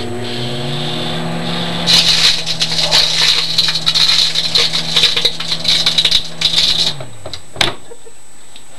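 Microwave oven running with its steady hum while CDs inside arc, giving dense crackling and snapping for about five seconds from two seconds in: the metal layer of the discs sparking. The hum then winds down and a single sharp click follows.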